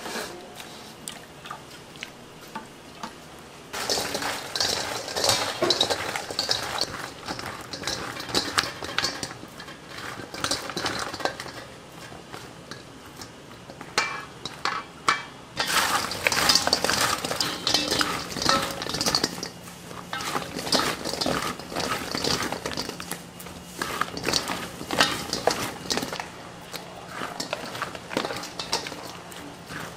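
Fried chicken pieces being tossed in sticky glaze in a stainless steel mixing bowl with a silicone spatula: busy wet stirring and scraping with light clinks against the metal, starting about four seconds in, with a short pause around the middle.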